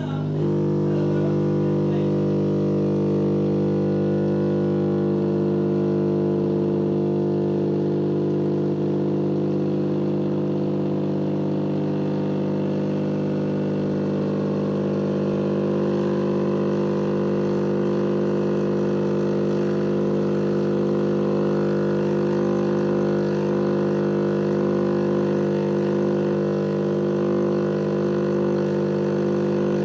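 A steady, unchanging low hum with a fixed pitch, like a motor or pump running continuously.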